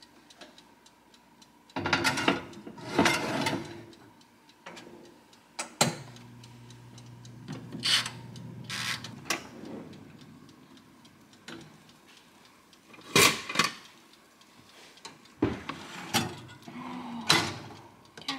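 Cuisinart countertop toaster oven being loaded and set: a series of separate metal clunks and clatters as the baking pan goes onto the wire rack, the door is worked and the dials are turned. Under them runs the faint ticking of its dial timer, and a low hum comes in about six seconds in.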